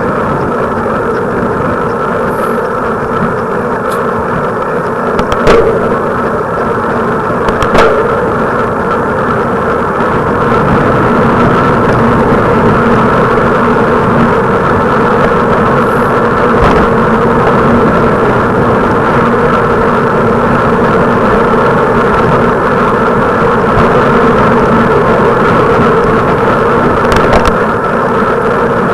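A steady mechanical drone like a running vehicle engine, a little louder after about ten seconds, with a few sharp knocks about five and eight seconds in and again near the end.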